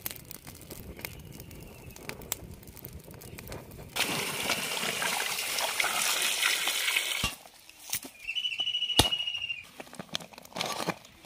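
A plucked chicken being washed by hand in a metal pot of water: splashing and sloshing, loud for about three seconds from around four seconds in. Before it, soft crackling from a small twig fire; near the end, a short high pulsing tone and one sharp click.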